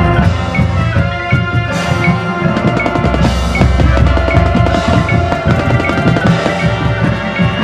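Marching band playing: held brass and wind chords over a steady pattern of marching bass drum strikes and other percussion.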